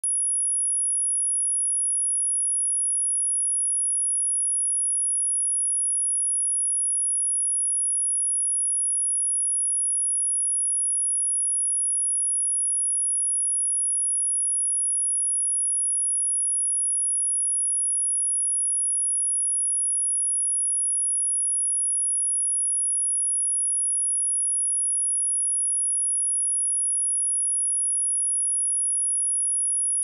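A steady, high-pitched pure sine tone at 10,328 Hz, an electronically generated test tone for checking speakers and headphones and for shaking water and dust out of a speaker.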